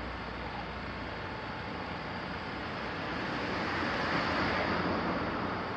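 Rushing noise of a passing vehicle that swells about four seconds in and then eases off.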